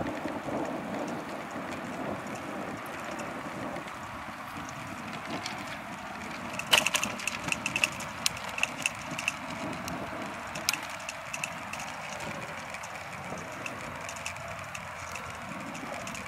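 Bicycle rolling along a road: a steady rumble of tyres and wind noise. From about seven seconds in come a loud sharp click and then a run of shorter clicks and rattles as the bike rides over rough, patched asphalt.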